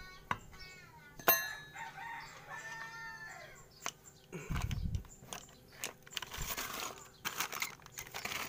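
A rooster crowing during the first few seconds, with a sharp click about a second in and bursts of hiss-like noise in the second half.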